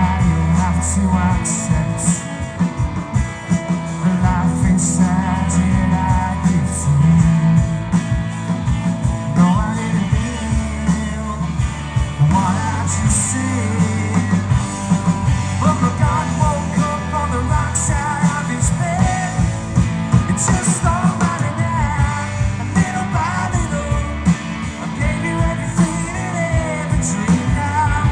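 Live rock band playing a song, with electric guitars, bass and drums under a lead singer.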